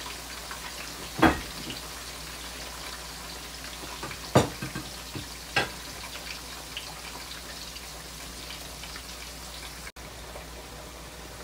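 Breaded chicken slices deep-frying in oil on medium heat, with a steady sizzle and bubbling. Three sharp clicks break through the sizzle: one about a second in, and two between about four and five and a half seconds.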